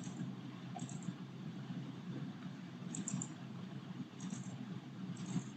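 A handful of faint, scattered computer keyboard clicks over a low steady hum.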